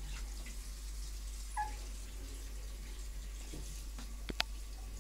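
A Chihuahua puppy gives one brief high-pitched whimper about a second and a half in, over a steady low hum. Near the end comes a single sharp click, the loudest sound.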